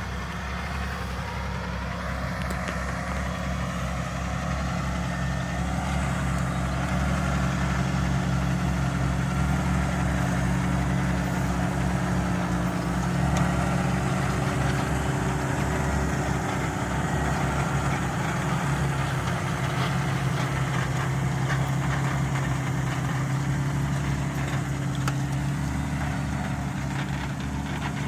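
Valtra Q Series tractor's six-cylinder diesel engine running steadily, pulling a Lemken five-furrow plough, growing louder over the first few seconds.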